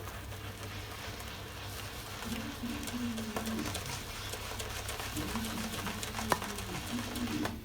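Shaving brush working soap into a lather: a steady fizzing swish made of many fine ticks.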